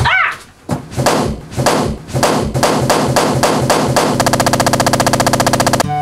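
A giant latex balloon bursts with a loud bang at the very start. A run of evenly spaced hits follows, about three a second, that speed up into a fast rattling roll for the last two seconds.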